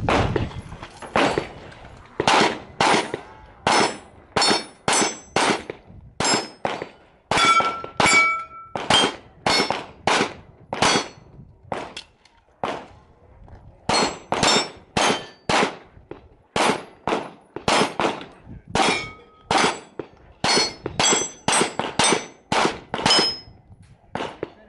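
Rapid 9 mm pistol shots from a Canik TP9 SFx, each answered by the ring of a struck steel target, in quick strings broken by short pauses as the shooter moves between positions, with one longer pause near the middle.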